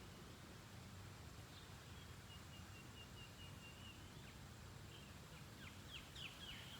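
Faint bird calls over a quiet background hiss: a short trill of rapid notes about midway, then several quick downward-sliding chirps near the end.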